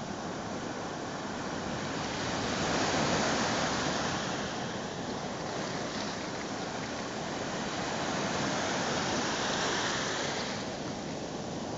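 Sea surf breaking and washing up the beach in a steady rush of foam. It grows louder twice, a few seconds in and again near the end, as waves break.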